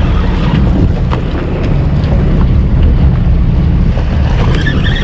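Heavy wind buffeting the microphone over the steady running of a charter fishing boat's engine, with water churning against the hull.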